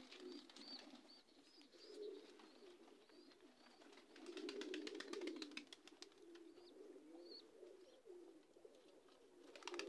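Domestic pigeons cooing faintly in a loft, the low coos swelling most about four to five seconds in, with small high chirps and light clicks over them.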